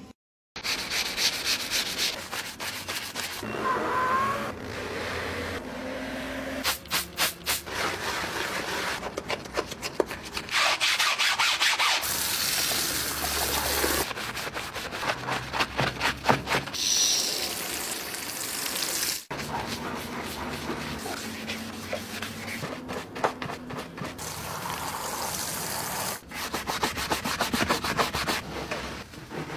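Scrubbing upholstery by hand with cleaner, in quick back-and-forth strokes, over a series of short clips that cut in abruptly; near the end it is a lathered car seat being scrubbed.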